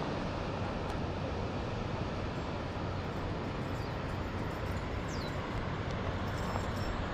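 Steady wind noise on the microphone, a constant rushing hiss with a low rumble, with a couple of brief high falling whistles about four and five seconds in.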